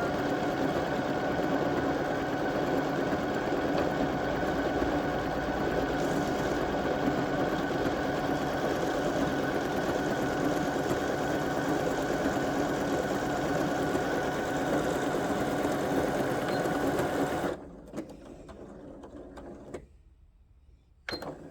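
Janome M100 QDC computerised sewing machine, started with its start button, running at a steady speed while it sews a decorative pattern stitch. It stops abruptly about three-quarters of the way through, followed by a few faint clicks.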